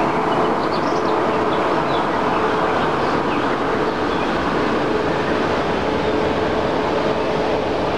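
A DB class 143 electric locomotive and its double-deck coaches running past and away, with a steady rumbling running noise and a steady hum. Birds chirp faintly above it.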